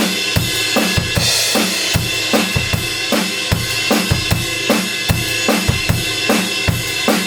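Drum kit playing a steady indie-rock beat: kick drum, snare and cymbals in an even rhythm.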